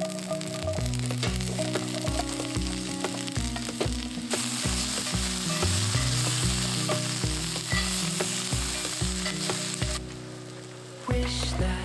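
Diced zucchini and bell peppers tipped into hot oil in a cast-iron skillet, sizzling as they fry. The sizzle grows louder about four seconds in and eases off near the end.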